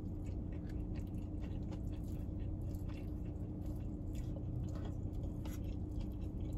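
Close-miked mouth sounds of someone eating fried chicken: chewing with scattered small wet clicks and smacks, over a steady low hum.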